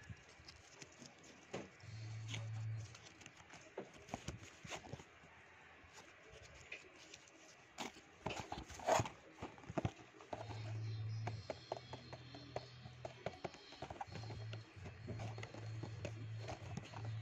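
Cardboard model-aircraft box being handled and turned over in the hands: scattered taps, knocks and scrapes of the cardboard, loudest about nine seconds in. A low steady hum comes and goes, at about two seconds in and again from about ten seconds on.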